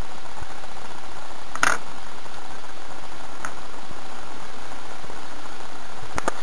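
Steady hiss of recording noise, with a few short clicks and taps: one sharper click a little over a second and a half in, a fainter one about halfway, and two more near the end.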